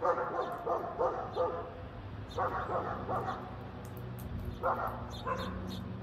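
A dog barking in three bouts of short, quick barks, with small birds chirping faintly.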